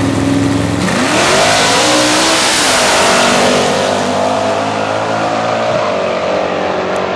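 Two street-race cars launching side by side from the line: engines held at steady revs, then about a second in a sudden loud surge as they take off, engine pitch climbing, dropping at a gear change and climbing again as they pull away.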